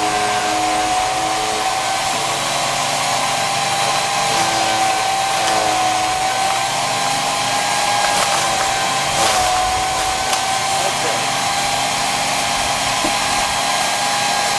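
Electric chipper shredder's 14-amp motor running with a steady high whine and a rushing noise. A couple of brief crackles come about eight and nine seconds in, the whine dipping slightly at the second.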